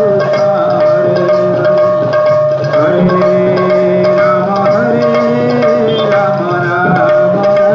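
Sambalpuri kirtan music played loud: a moving devotional melody over steady drumming, with one high drone note held unbroken throughout.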